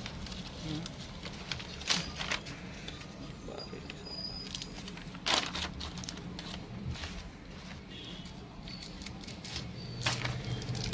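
Printed packaging wrapper rustling and crinkling as a long brass airgun barrel is unwrapped and handled, in a few short sharp rustles about two, five and ten seconds in, over a low steady hum.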